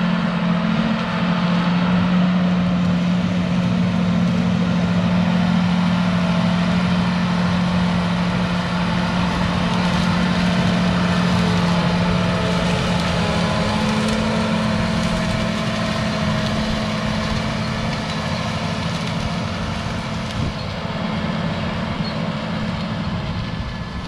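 John Deere 8245R tractor's six-cylinder diesel engine running steadily under load as it pulls a Case IH chisel plow, a constant engine drone with the rumble of the working plow. It draws close about halfway through and eases off slightly as it moves away near the end.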